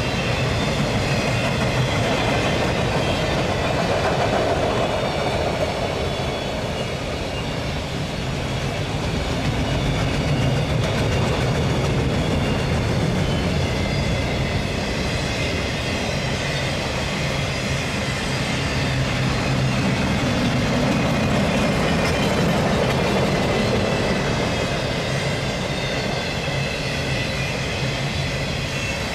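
Autorack cars of a long freight train rolling past, a steady rumble of steel wheels on the rails.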